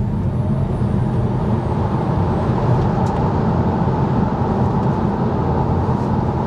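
Cabin sound of a dual-motor Tesla Model 3 Performance under full-throttle acceleration: steady, loud tyre and road noise on a wet road, with a faint rising electric-motor whine near the start.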